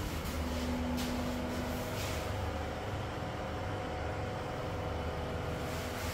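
A steady low rumble of background noise with a faint hum, and a couple of faint ticks.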